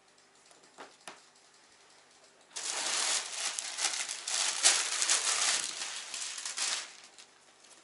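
Plastic packaging crinkling and rustling for about four seconds as clothing is unwrapped and handled. A couple of faint taps come before it.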